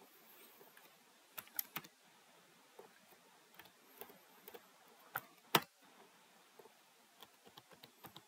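Computer keyboard typing: a short run of scattered, irregular keystrokes, faint overall, with one louder key click about five and a half seconds in.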